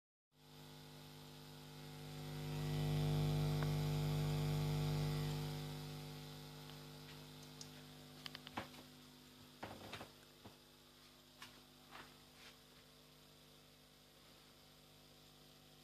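A subwoofer giving off a steady electrical mains hum, a buzz of low tones, which is the fault its owner wants fixed. The hum swells louder for a few seconds about two seconds in, then settles back, and a few small clicks and taps come in the second half.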